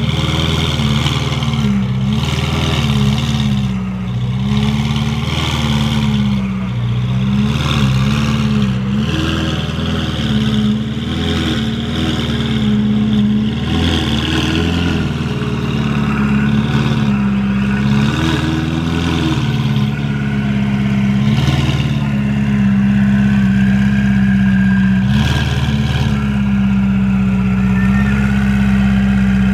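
Ferrari 488 Pista's twin-turbo V8 with a Novitec exhaust running at low revs. Its pitch rises and falls slightly with light throttle for the first two-thirds, then settles into a steady idle.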